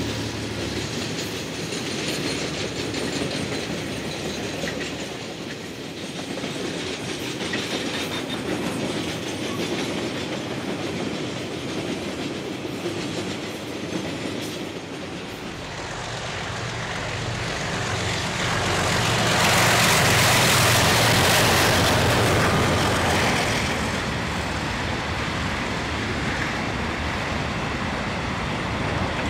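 Freight train wagons rolling past on steel wheels over the rails, a steady running noise that grows louder for a few seconds past the middle.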